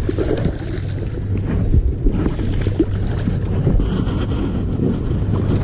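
Wind buffeting the camera microphone: a steady, loud low rumble, with a faint hum and a few light handling knocks.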